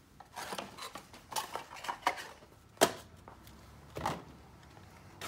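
Key blanks and their packaging being handled in a cardboard box: rustling with light metal clinks, then a sharp knock a little under three seconds in and a smaller one about four seconds in.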